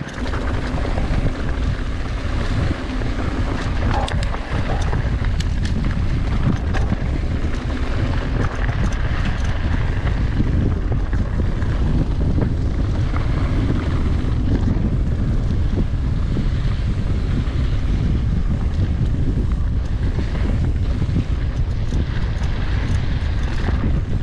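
Steady wind rumble on an action camera's microphone while mountain biking on dirt singletrack, with scattered clicks and rattles from the bike over the rough trail.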